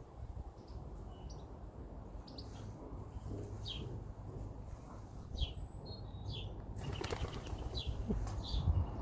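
Birds calling in short, falling chirps, repeated every second or so, over a low rumble. About seven seconds in, a rustling, fluttering noise joins them.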